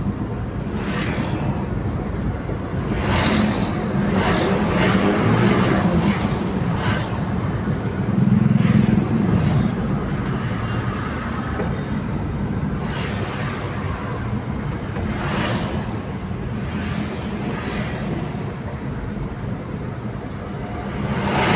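Road traffic on a highway: a steady low engine rumble, with vehicles rushing past about eight times. One louder pass comes a little before the middle.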